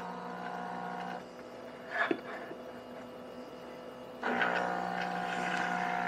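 The pump of a De'Longhi La Specialista EC9335R espresso machine pulling an espresso shot. A steady hum stops about a second in, a short click comes about two seconds in, and the hum starts again more loudly about four seconds in and runs steadily.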